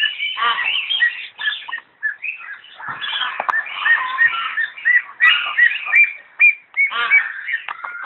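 Myna calling: a rapid, varied string of chirps, whistles and squawks. Through the middle it repeats a short whistled note about two or three times a second.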